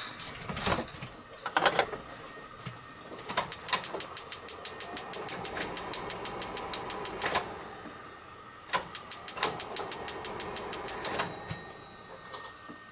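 A ceramic lid knocks onto a clay donabe pot about a second in. Then come two runs of rapid, even ticking from a gas stove's electric igniter as the burner is lit, about eight clicks a second, with a short pause between the runs.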